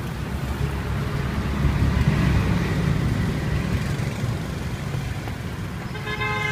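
Street traffic: a motor vehicle's low rumble swells and fades about two seconds in. Near the end a vehicle horn starts to sound.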